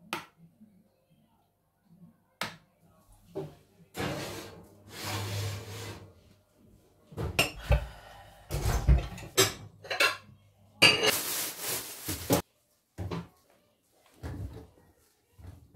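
Kitchen clatter: dishes, cutlery and utensils knocking and clinking, with a dense run of clatters in the middle and two spells of steady hiss.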